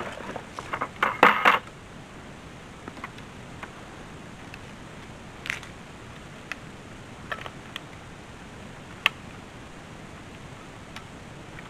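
Clattering of hard plastic fence hardware handled in a bucket for about the first second and a half, then a few scattered sharp clicks as a polywire insulator is worked onto a steel T-post.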